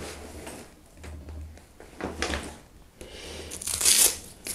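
Backpack strap and nylon fabric being handled while a small FPV quad is strapped to the outside of the bag: soft rustles and scrapes, with a longer hissing scrape about three to four seconds in.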